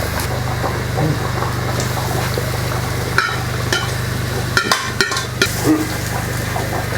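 Curry cooking in a pot, stirred with a metal spoon that scrapes and clinks against the pot several times in the second half, over a steady low rumble.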